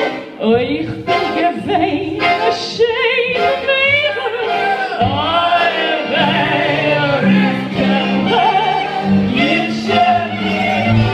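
A singer with vibrato, accompanied by a small band of cello, violin, accordion and clarinet, over sustained low instrumental notes.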